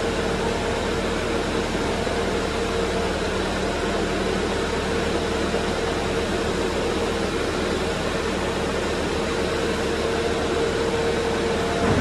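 Case TV450B compact track loader's diesel engine running steadily, with a constant tone over the engine noise, while its lift arms raise the bucket.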